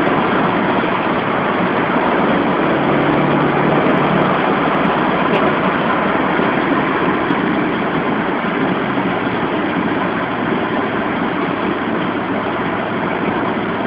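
Steady road and engine noise heard inside a car's cabin while cruising at motorway speed, with a low engine hum under the rush of tyres and wind.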